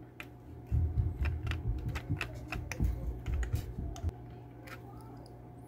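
Small screwdriver tip clicking and scraping against a pop rivet and a half-cut washer as it pries the washer out from under the rivet, in rapid irregular ticks over about four seconds that then thin out. Dull knocks from the plastic passenger-car body being handled sound under the clicks.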